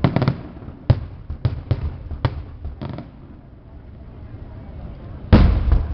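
Aerial fireworks going off: a quick run of sharp bangs over the first three seconds, then a louder, longer boom near the end.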